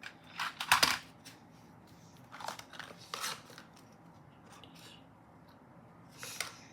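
Speedcube box and packaging handled while being packed up: a cluster of sharp plastic clicks and rustles about a second in, then scattered softer taps and rustles.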